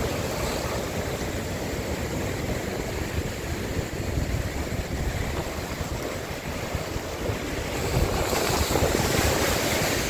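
Heavy surf surging over a rocky shore shelf. About eight seconds in, a big wave breaks against the rocks and the wash grows louder.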